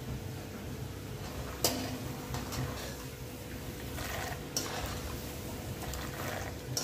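Peanuts deep-frying in hot oil in a kadhai, with a steady sizzle. A wire-mesh skimmer stirs and scoops them and clinks sharply against the pan three times, loudest about one and a half seconds in.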